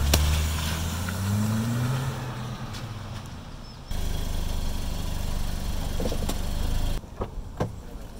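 Car engine running, rising in pitch over the first two seconds as the car pulls away, then settling to a steadier low drone. The sound jumps abruptly in level twice, and a few short clicks come near the end.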